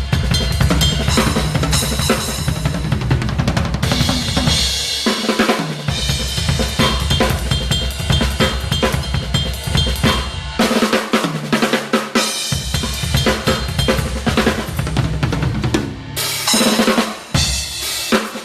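Crush drum kit played continuously in a busy groove: kick drum, snare with rimshots and crashing cymbals. The kick drops out briefly a few times for fills.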